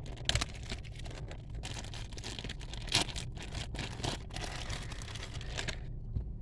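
A plastic parts bag being opened and handled: scattered crinkles and small clicks, with two sharper snaps, about a third of a second and three seconds in, over a steady low hum.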